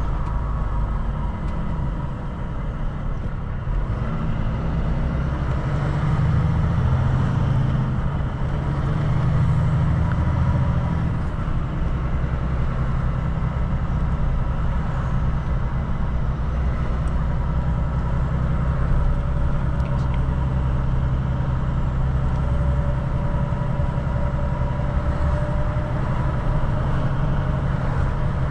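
Volvo FM4 truck driving along: a steady diesel engine drone with road noise, swelling louder for a few seconds about a quarter of the way in.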